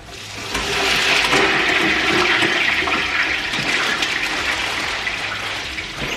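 Fries dropped into hot frying oil, sizzling and bubbling hard. The sizzle swells over the first second and then holds steady.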